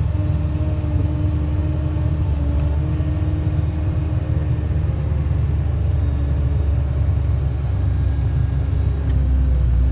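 Komatsu 320 wheel loader's diesel engine running steadily under load, a low rumble with a steady whine above it, as the loader carries a skid steer on its forks.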